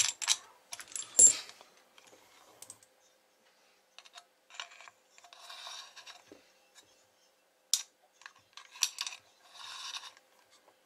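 Metal coax plugs and wire leads clinking and rattling as they are handled and pulled off an amplifier on a workbench. A quick run of clinks comes in the first second or so, then scattered quieter clicks and the rub of cables being moved.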